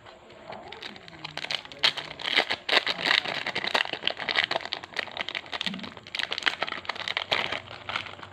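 Foil wrapper of a Yu-Gi-Oh! booster pack crinkling and crackling as it is handled, a dense run of small crackles.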